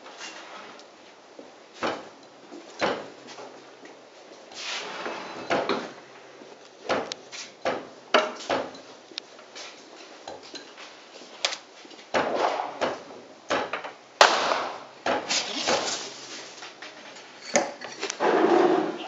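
Sharp reports of small black-powder model cannons firing on an indoor range, a dozen or more at uneven intervals with a short echo. The loudest, sharpest crack comes about two-thirds of the way through, and the model cannon on the table is smoking soon after.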